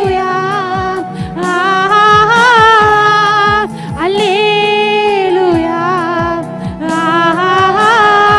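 A woman singing a Tamil Christian worship song into a microphone, holding long notes with vibrato in four phrases, over backing music with a steady low accompaniment and light percussion.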